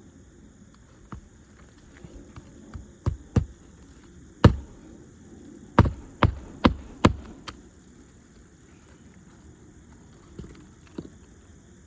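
A hammer knocking on a shingle roof: a series of sharp knocks, two about three seconds in, then one hardest single blow, then a quick run of four more, with a few lighter taps around them. These are likely nails being driven to fasten a replacement asphalt shingle.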